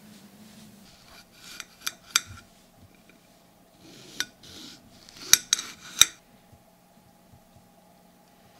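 Kitchen knife slicing lemons on a ceramic plate, the blade clicking sharply against the plate in two bursts, the loudest strikes a little past halfway.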